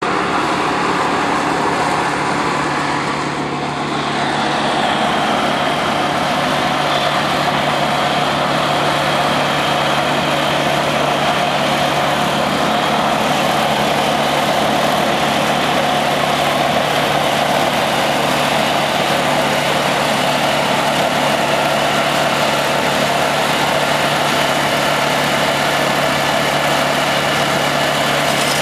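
Gas-powered walk-behind concrete saw running steadily, its water-cooled blade cutting a trench line through asphalt pavement.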